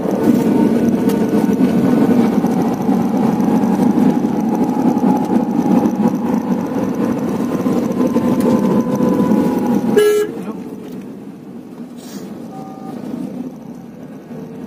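Cabin noise inside a moving Tata Nano, heard from the back seat: its rear-mounted two-cylinder engine and road noise run steadily, then drop away abruptly about ten seconds in. A brief car horn toot sounds in the quieter stretch that follows.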